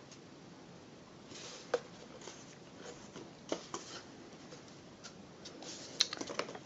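Quiet handling of an empty cardboard tube and craft supplies on a table: a few light taps and knocks as the tube is turned and set down, with a cluster of small clicks near the end.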